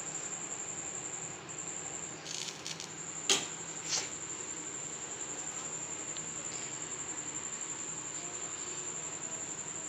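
Steady, high-pitched, slightly pulsing cricket trill, with a few sharp clicks about two to four seconds in, the loudest two near three and four seconds, as a bread slice is handled on a pan.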